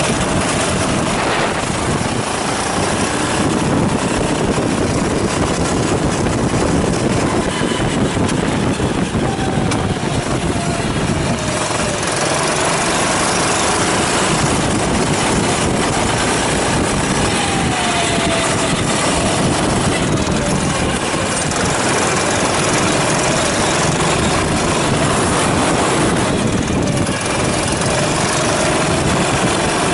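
Kart engine running hard on track, its pitch falling and climbing again every several seconds as the kart brakes for and accelerates out of corners.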